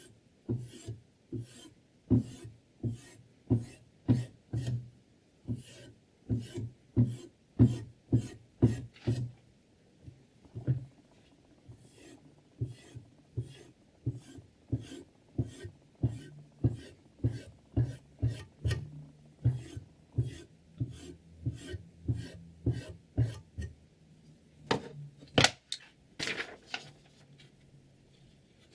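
Sharpening stone on a guided knife sharpener rubbing along the edge of a 10Cr15CoMoV steel chef knife in quick back-and-forth strokes, about two a second, with short breaks between runs.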